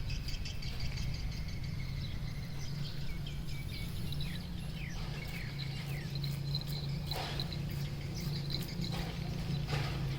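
Outdoor ambience: a steady low hum with a run of short, quick falling chirps a few seconds in and a few scattered clicks.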